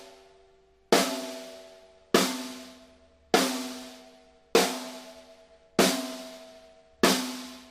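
Mapex Black Panther Machete 14x6.5 metal snare drum played with single rim shots at medium tuning, six strikes evenly spaced a little over a second apart. Each hit cracks and then rings with a pitched metallic overtone that fades before the next one.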